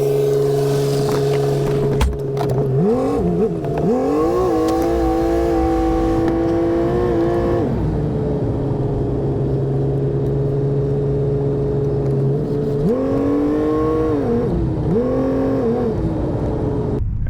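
Skid steer engine running under way, revving up about three seconds in, holding, and dropping back to a steady lower speed; it revs up again near the end, falls, and briefly rises once more.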